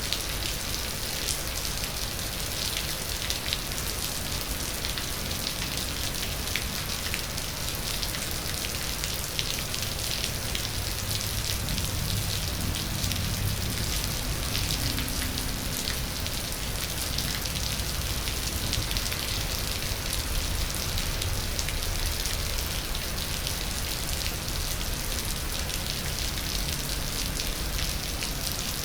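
Steady rain falling: a dense, even hiss with many small individual drop impacts pattering on surfaces.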